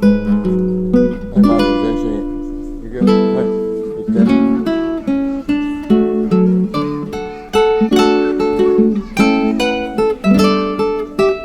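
Background music: acoustic guitar plucking and strumming a gentle melody.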